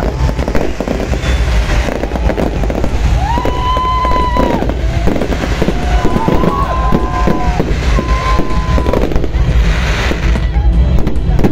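Fireworks going off in a dense crackling barrage. Several whistling fireworks rise in pitch and hold a shrill tone, the longest about three seconds in, with shorter ones following.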